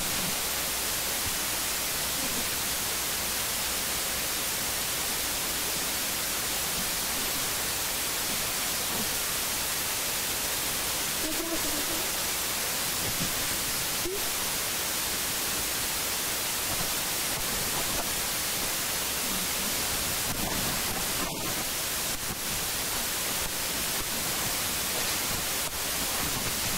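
Steady hiss of recording noise, strongest in the treble, with nothing clear over it; a few faint, brief sounds come through about halfway and again later on.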